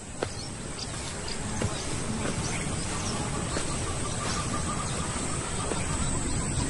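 Steady insect chirring with an even wash of outdoor ambience, with a thin high whine throughout and a few faint ticks.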